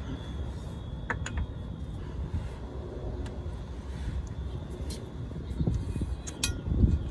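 A few light metallic clicks and knocks, about a second in and again near the end, as a new universal joint is worked into a truck's driveshaft yoke, over a steady low rumble.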